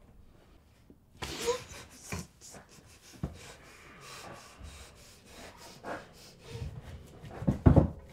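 A person's breathing and panting with rubbing and rustling, starting about a second in, and a couple of heavier low thumps near the end.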